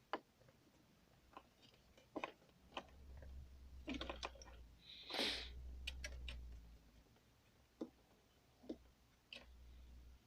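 Screwdriver loosening the two screws on a car shift knob: faint, scattered clicks and ticks, with a short rustle about five seconds in and low handling rumble through the middle.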